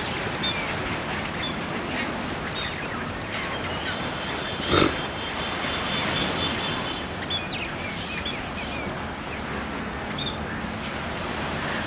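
Birds calling over a steady outdoor hiss: a few short high chirps, a held high whistle, and one loud, short call near the middle.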